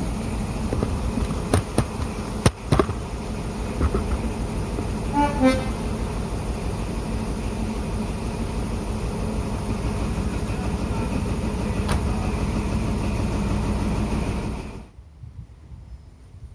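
A train horn sounds one brief toot about five seconds in, over a steady loud rush of noise broken by a few sharp clicks. The sound cuts off abruptly near the end.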